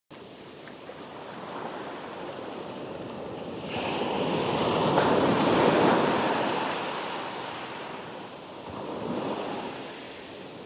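Intro whoosh sound effect: a rushing noise like wind or surf that swells to a peak about halfway through, fades, then swells again more softly before cutting off abruptly.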